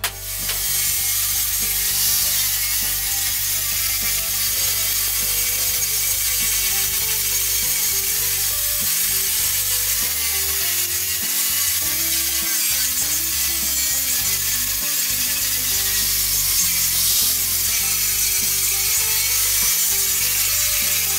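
Angle grinder with a grinding disc running steadily against welded steel nuts, a continuous high grinding hiss as the disc dresses the weld beads.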